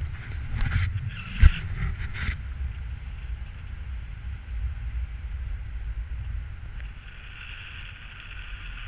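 Wind noise on a camera microphone from the airflow of a paraglider in flight: a steady low rumble and buffeting. There are a few sharp knocks in the first couple of seconds, the loudest about one and a half seconds in.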